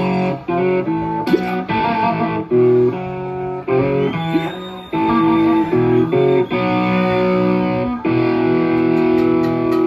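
Live rock band playing through a stage PA: electric guitar and bass play a riff in short stop-start phrases with brief breaks, settling into a held chord about eight seconds in.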